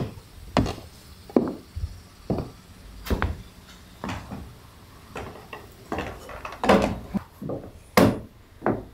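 Footsteps on a wooden boat deck and down into the hull: a string of uneven wooden knocks, about one to two a second.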